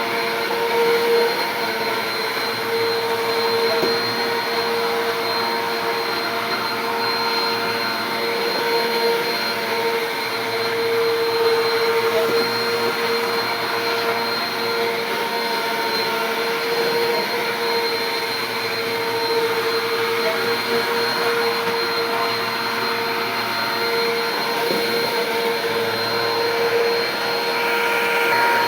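Bissell PowerForce Compact upright vacuum cleaner running steadily, its motor giving a constant whine over the rush of air.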